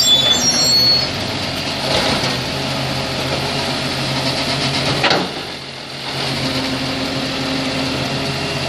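Volvo side-loader recycling truck's diesel engine running steadily at low speed. About five seconds in the sound dips briefly, then picks up again with a steady hum.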